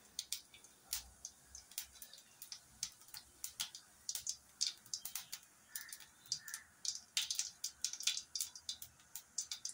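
Whole cumin seeds crackling in hot oil: irregular sharp pops and ticks, several a second, as the seeds start to roast.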